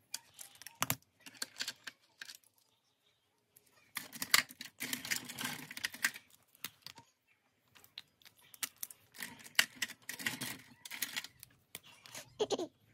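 Hands handling a ring binder and its plastic-sleeved tracker page: bursts of clicking, tapping and rustling as long fingernails tap on the page and plastic, with a short falling squeak near the end.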